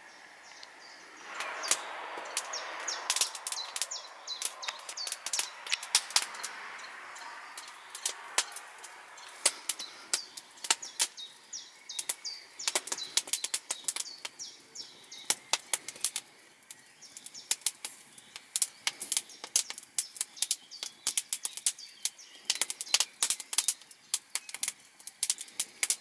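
Wood fire crackling in a stone fireplace: irregular sharp pops and snaps throughout, growing denser toward the end. A soft rustling hiss runs under the first several seconds.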